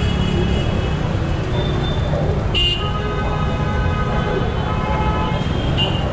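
Busy street traffic: a steady rumble of cars and motorbikes passing, with vehicle horns honking, one sharp honk about two and a half seconds in, a longer horn after it, and another short honk near the end.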